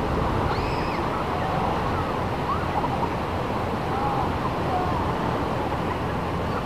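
Steady wind buffeting the microphone over the wash of small waves on a sandy beach.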